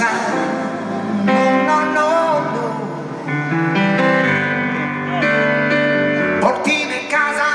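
Live band music with guitar to the fore, and a voice singing held and bending notes over it.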